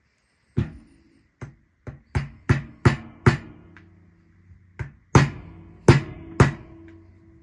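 Metal tapping on a small retainer pin to drive it back into a canopy T-handle lock barrel: about a dozen sharp strikes in uneven groups, each ringing briefly.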